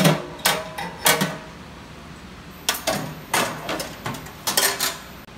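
Stainless steel wire screen being lifted out of the drained fry vat of an UltraPro 14 commercial deep fryer, clanking against the metal vat. There are several sharp metal clanks, a few in the first second and more in a second group after a pause of about a second and a half.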